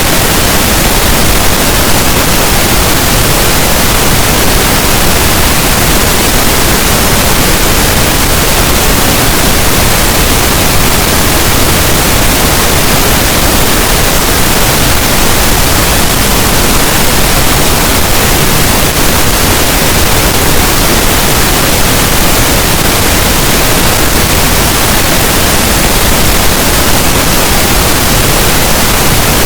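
Pink noise: a loud, steady, even hiss across all pitches that holds unchanged throughout.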